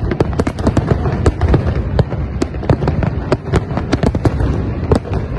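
Aerial fireworks bursting in a dense barrage: many sharp bangs and cracks every second over a constant low rumble.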